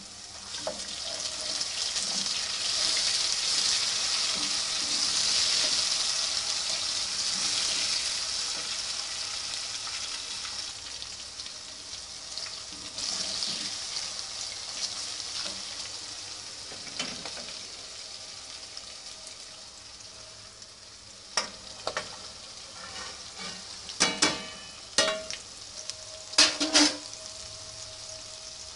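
Onions and chillies frying in hot oil in an aluminium pot, sizzling loudly while being stirred with a wooden spatula. The sizzle swells over the first few seconds and then slowly dies down. In the last third come several sharp knocks against the pot.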